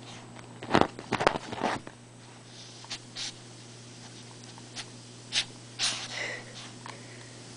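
Dog digging at couch cushions: a quick cluster of loud scratching and rustling bursts about a second in, then scattered shorter ones.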